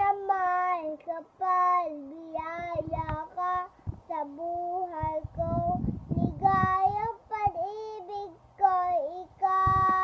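A young girl singing without accompaniment, a melody in short phrases, ending on one long held note near the end.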